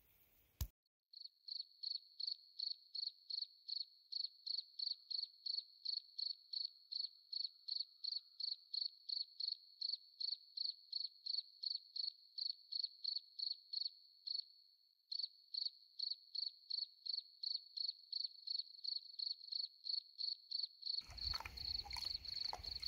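Cricket chirping in a steady rhythm, about two to three chirps a second, with nothing else behind it and a brief break about two-thirds of the way through. Near the end, outdoor background noise comes in under the chirps.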